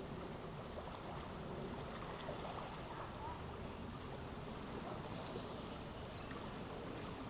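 Steady outdoor background noise: an even low rumbling hiss with no distinct event.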